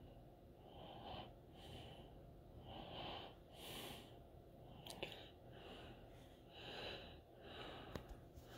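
Faint breathing close to the microphone: a string of short, soft breaths, with a couple of light clicks.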